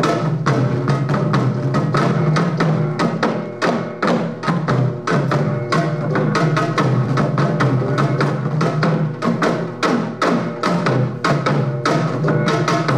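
A set of Korean barrel drums (buk) beaten rapidly with wooden sticks in a dense, driving rhythm of many strokes a second.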